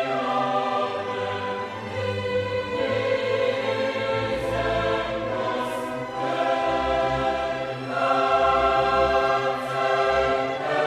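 Background choral music: a choir singing.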